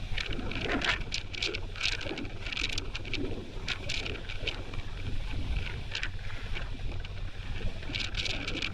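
A car ferry's engines humming steadily, with strong wind gusting across the microphone in irregular hissing bursts.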